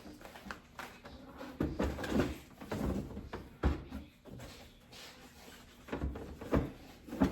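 Knocks and light clatter of items being handled and set down inside a refrigerator, a string of separate thuds.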